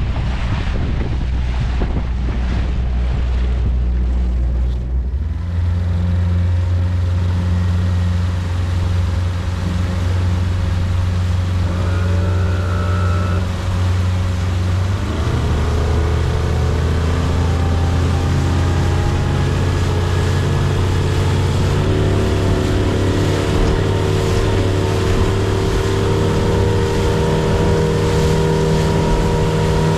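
A small boat's engine running under way, its pitch stepping up about five seconds in and rising again about fifteen seconds in as the throttle is opened.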